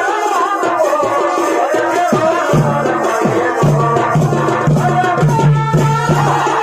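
Live Purulia Chhau dance music: a wavering melody over drums and rattling percussion, with a low steady tone coming in about two and a half seconds in.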